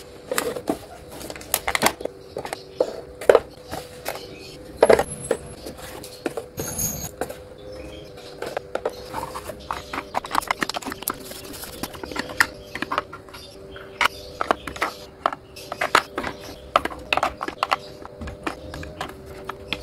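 Small plastic cosmetic bottles, tubes and lipsticks being picked up, set down and knocking against each other and a plastic drawer: a run of light clicks and clacks at an irregular pace. A faint steady hum sits underneath.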